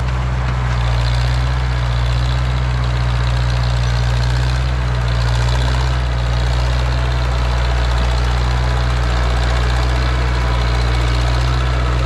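John Deere 1010 crawler dozer's gasoline engine running at a steady speed with a deep, even drone, which the owner puts down to dirt in the carburetor.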